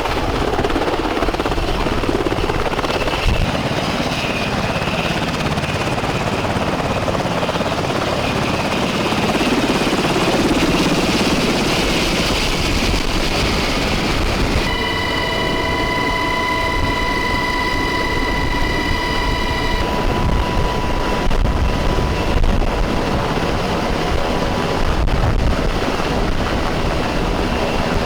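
Military helicopter running overhead, its rotor and turbine noise a steady rush. About halfway through, a steady high whine joins for about five seconds, then cuts off.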